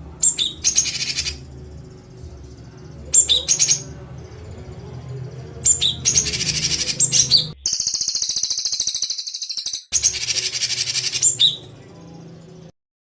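A songbird's harsh, rapid rattling call ('tembakan kasar'), repeated five times with short pauses as a tutoring recording for cage birds. Each burst opens with a few sharp whistled notes, and the fourth burst is the longest. A low steady hum lies underneath.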